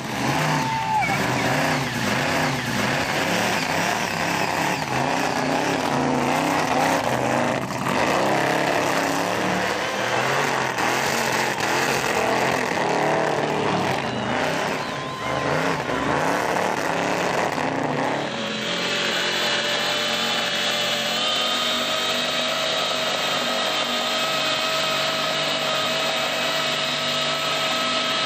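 Supercharged burnout car revving hard while its spinning rear tyres scrub and smoke. The engine note rises and falls for the first eighteen seconds or so, then is held at steady high revs.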